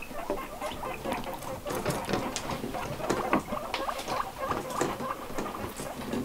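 Guinea pigs biting and chewing strips of raw carrot and bell pepper held out by hand: a quick, irregular run of short crunches and clicks.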